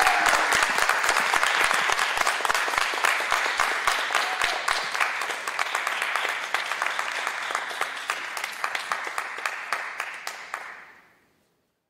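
Audience applauding and clapping, many separate claps, thinning and fading out near the end.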